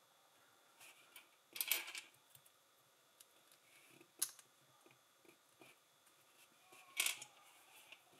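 LEGO plastic pieces being handled and snapped together: scattered small plastic clicks and rattles, the loudest about a second and a half in, at four seconds and at seven seconds.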